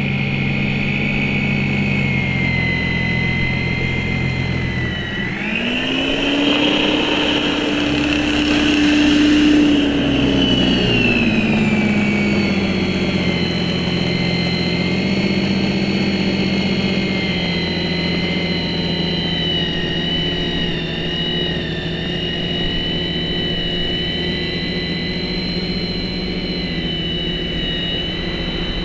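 Corded electric Snow Joe single-stage snow thrower running with a steady motor whine as it throws snow. About five seconds in the whine climbs in pitch and holds, with a rushing hiss swelling over it. By about twelve seconds the pitch has sunk back and stays steady.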